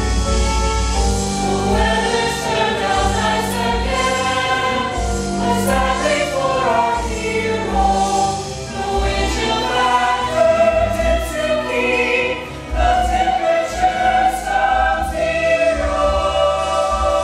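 A choir singing a melodic song over instrumental accompaniment with a steady bass line.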